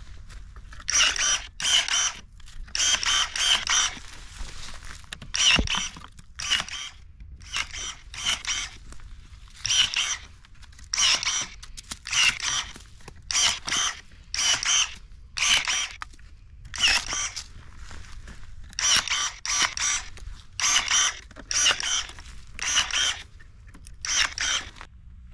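Cordless electric pruning shears cutting grapevine canes: a short, high motor whine with each snip, often two in quick succession, repeated about every second with brief pauses.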